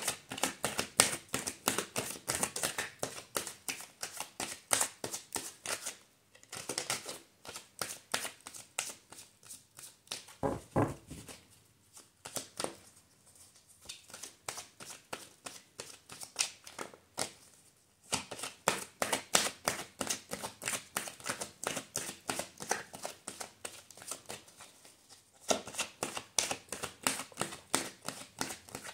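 A tarot deck shuffled by hand: several runs of rapid flicking and slapping of cards, with short pauses between them.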